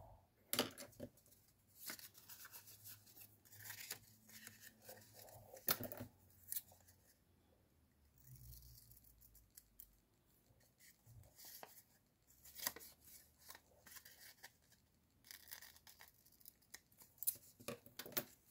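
Scissors snipping small pieces of patterned paper, with irregular sharp snips among the rustle of paper being handled.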